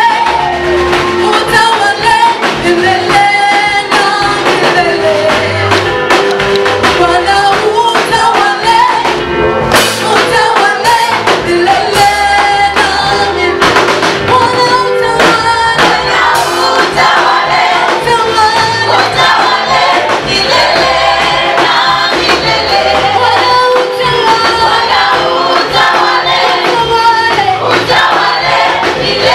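A choir singing an upbeat gospel praise song, backed by a steady beat, bass and a jingling tambourine-like percussion.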